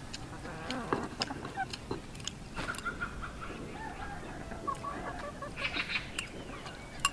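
Chickens clucking in short bouts in the background, with light clicks of chopsticks against china as food is tipped from a plate into a rice bowl.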